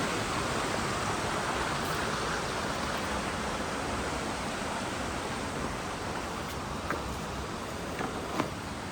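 Rushing water from a waterfall or stream: a steady hiss that eases off slightly, with a few sharp clicks near the end.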